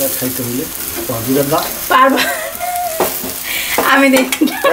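Hot oil sizzling in a wok as an egg omelette is lifted out onto a steel plate, with a voice talking over it at times.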